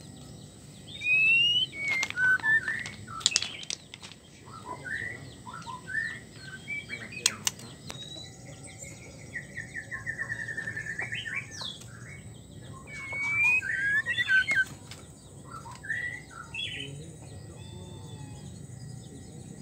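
White-rumped shama calling: short whistled notes and rising and falling glides in scattered phrases, with a fast rattling trill around the middle. A few sharp clicks are heard about three and seven seconds in.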